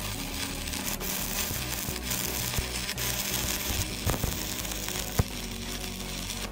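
Stick welding: the arc of a coated electrode crackling and sizzling steadily as it lays a bead on steel plate, with two sharp pops past the middle, stopping at the end.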